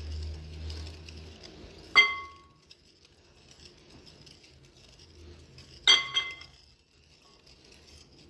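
A spoon or whisk clinking against a mixing bowl while cookie dough of butter, sugar and egg is beaten, with faint stirring between. There are two ringing clinks about four seconds apart, and the second is followed quickly by a smaller one.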